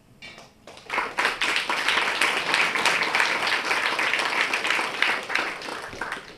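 Audience applauding: many hands clapping, beginning about a second in and dying away near the end.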